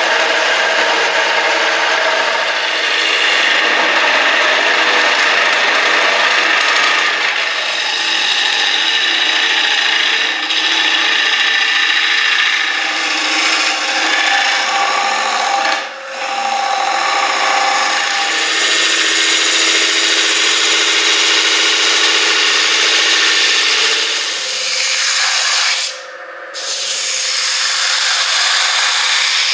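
Bowl gouge cutting a spinning holly-and-green-epoxy resin bowl blank on a wood lathe: a continuous scraping hiss over the lathe motor's steady hum, broken briefly twice. Near the end the sound sweeps down and back up in pitch, and turning gives way to sanding.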